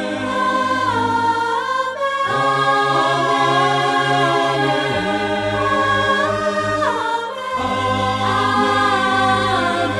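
Gospel choir of mixed men's and women's voices singing in sustained, held chords that shift three times.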